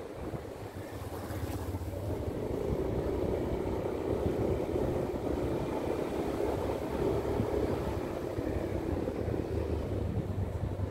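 Motorcycle engine running steadily while riding along a road, with a low hum and rushing road noise.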